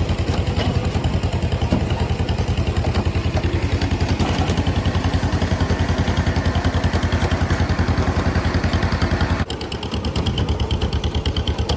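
Farm tractor engine running steadily while it pulls a passenger wagon, with a fast, even throb. The sound drops and changes abruptly about nine and a half seconds in.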